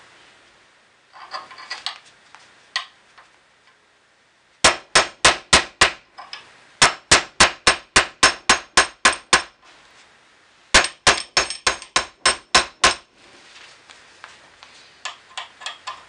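Metal-on-metal hammer blows on an old hinge pin used as a drift, driving the detent arm pin into a 1967 Mustang's cast steel lower door hinge. A few light taps come first, then three quick runs of blows at about five a second, the middle run the longest.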